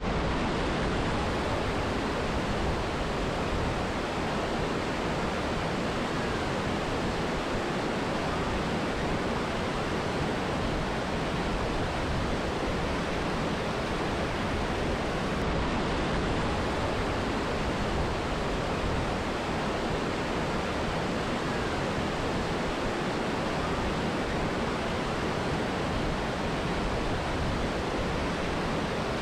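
Steady rush of a mountain river and waterfall: an even, unbroken wash of falling and flowing water with no separate splashes.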